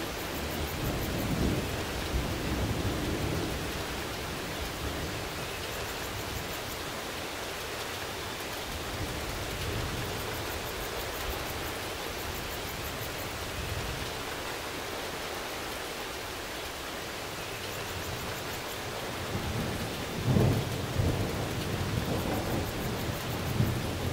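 Steady rain with thunder: low rumbling in the first few seconds, and a sharper, louder thunderclap about twenty seconds in, followed by more rumbling.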